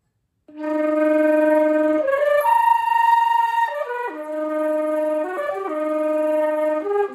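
Concert flute played with throat flutter-tonguing: a phrase of held notes that leap between low and high pitches, starting about half a second in.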